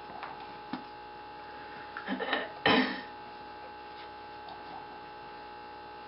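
Rat terrier tearing at a plush toy and its stuffing: soft rustles, then a short burst of scuffling ending in a thump about two and a half seconds in, over a steady electrical hum.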